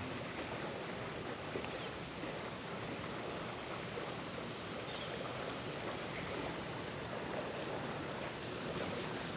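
Steady, even rushing noise of wind over the camera microphone, with no distinct events.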